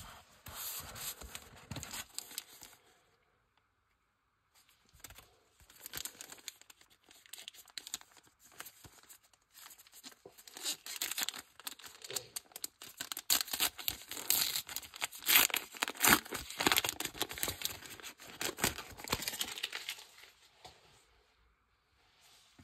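A foil trading-card booster pack wrapper being torn open and crinkled by hand: a short burst of crackling, a pause of about two seconds, then a long stretch of continuous tearing and crinkling that is loudest in its second half and stops shortly before the end.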